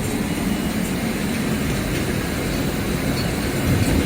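Steady low hum and rumble of a rubber hose production line's machinery running: motors and drives of the extrusion and haul-off equipment.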